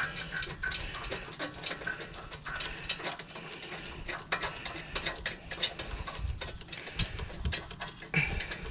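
Ratchet wrench clicking in quick, irregular runs as a front brake caliper bolt is backed out.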